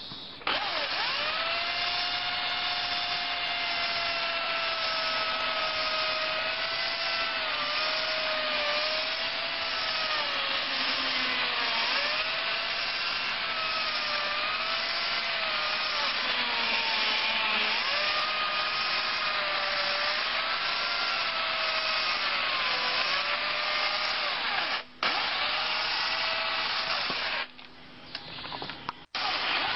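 Corded electric chainsaw running and cutting through a wooden beam, its motor whine dropping in pitch each time the chain bites under load and rising again as it frees. It cuts out briefly about 25 seconds in and again near the end.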